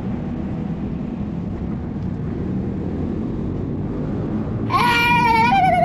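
Steady rumble and hiss of a rigid bicycle rolling fast over wet pavement. Near the end a loud, high wavering cry cuts in and drops in pitch.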